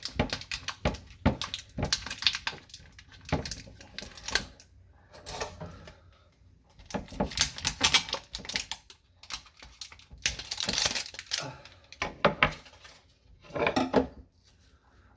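Ice cream tub and spoon being handled: quick runs of clicks, taps and scraping rustles in several bursts.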